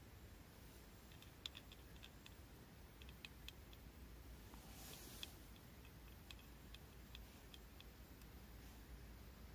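Near silence with faint, scattered small clicks and ticks at irregular intervals, and a brief soft hiss about halfway through.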